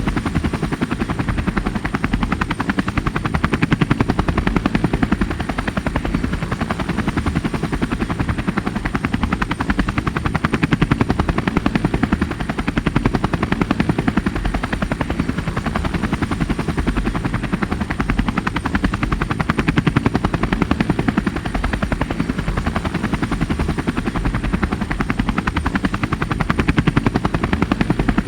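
Steady, rapid chopping like spinning rotor blades, with a faint high whine held throughout and a slow swell in loudness every few seconds.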